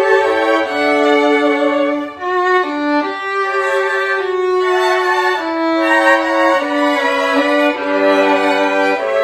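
Four overdubbed violin parts playing together in harmony, sustained bowed notes shifting about once a second, with a lower note entering near the end.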